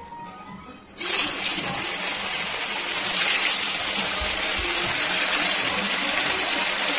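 Chicken momos deep-frying in hot oil: loud, steady sizzling that starts abruptly about a second in as they go into the oil.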